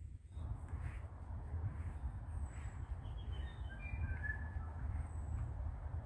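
Steady rush of wind through the bush canopy with a low wind rumble on the microphone, starting about half a second in, and a few short bird chirps about midway.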